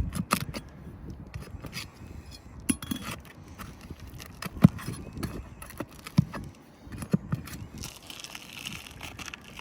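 Flat bar prying roofing nails out from under asphalt shingles: scattered sharp metal clicks and knocks with light scraping.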